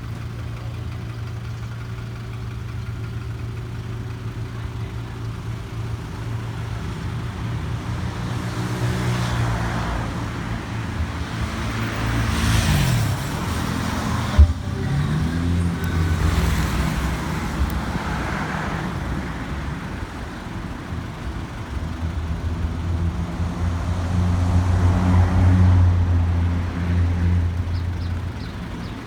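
A motor vehicle's engine running steadily. Its pitch drops about twelve seconds in and then picks up again, while road traffic swells and fades around it. There is a single sharp click near the middle.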